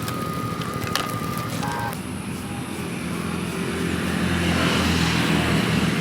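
Engine of a road vehicle running and growing louder over the last few seconds, as if approaching, over general street noise.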